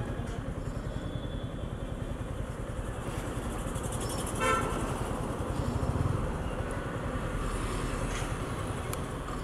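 Yamaha R15 V4 motorcycle on the move, its single-cylinder engine running under wind and road rumble. A short vehicle horn toot sounds about four and a half seconds in.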